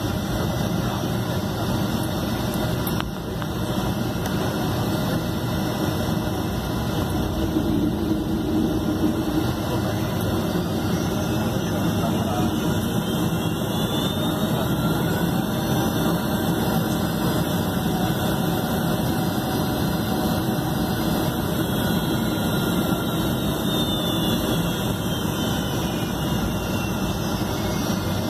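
Boeing 757's Rolls-Royce RB211 turbofan engines at taxi power, heard inside the passenger cabin: a steady rumble. About halfway through, a faint high whine slowly rises and falls in pitch.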